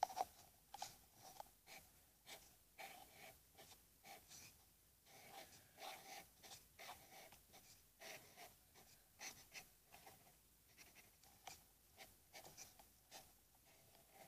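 Black felt-tip marker writing on paper: many short, faint, irregular strokes as capital letters and a small face are drawn.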